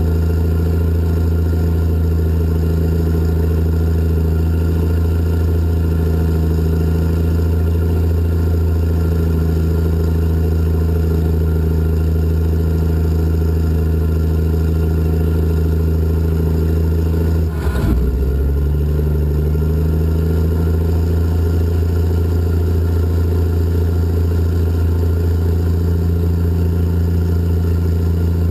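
Caterpillar 627 scraper's diesel engines running steadily, heard from inside the operator's cab. About two-thirds of the way through there is a brief clunk and the engine note dips, then settles again slightly changed.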